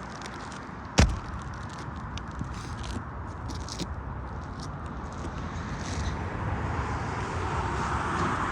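Light scraping and crackling of roof shingles being handled and worked, with one sharp knock about a second in, over steady outdoor background noise.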